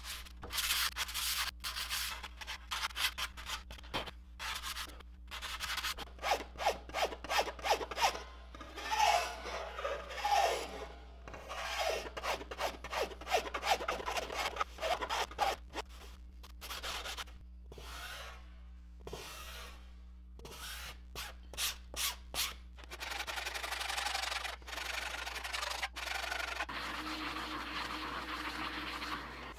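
Curved-tooth hand file rasping in repeated strokes along the edge of a wooden kayak paddle blade, smoothing down hardened epoxy-saturated nylon cord ends. The strokes come quicker for a few seconds midway, and near the end they give way to a steadier rubbing.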